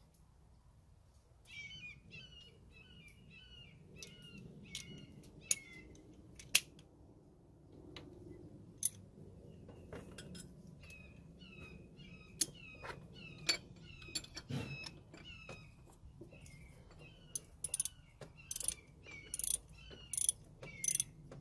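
Ratchet wrench clicking and metal tools clinking on a Nissan D21 power steering pump bracket and belt tensioner as they are tightened to set the belt tension. The clicks come scattered at first, then faster and louder near the end. Runs of repeated high chirps sound underneath for a few seconds at a time.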